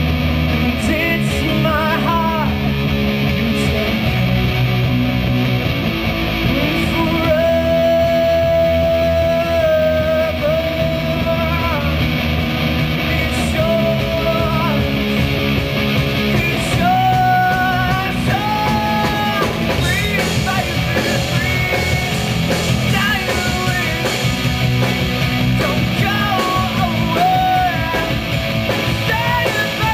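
A live power-pop band playing a song: a male lead singer sings over electric guitars and drums, holding some long notes.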